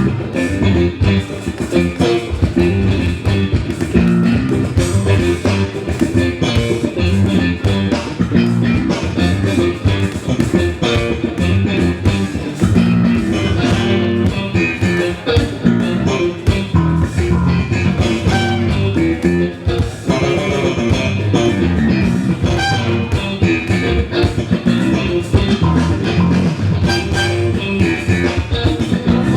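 Live instrumental soul-funk band playing a groove: guitar over bass guitar and drum kit, no vocals.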